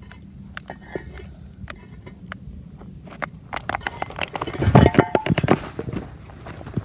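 Hard objects clicking and knocking as they are stacked, then a loud clatter with a brief ringing tone about five seconds in as the load on the Rubik's cube gives way.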